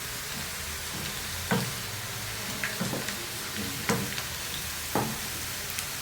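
Onions and garlic sizzling steadily in hot oil in a pan, browning, with a stirring spoon knocking against the pan about five times.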